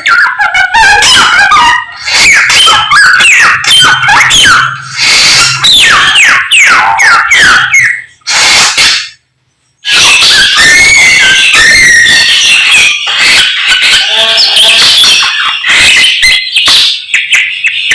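A songbird known locally as a samyong singing a loud, rapid, chattering song of quick sweeping notes, with a brief break about nine seconds in.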